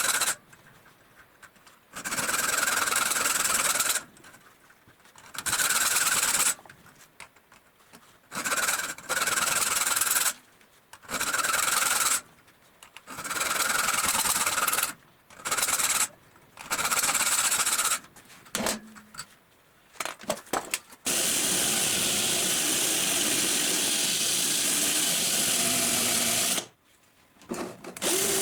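Abrasive scraping on the knife in repeated bursts a second or two long, with short pauses between. About two-thirds of the way through, a steadier continuous grinding or sanding sound runs for about six seconds.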